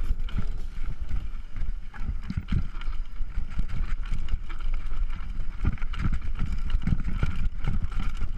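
Mountain bike rolling fast over a rocky dirt trail: a constant low rumble with many irregular knocks and rattles as the tyres and frame hit stones, picked up by the rider's camera microphone.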